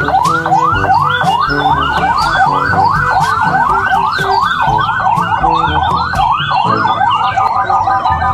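Police car siren on a fast yelp, each wail sweeping quickly upward and repeating about three times a second.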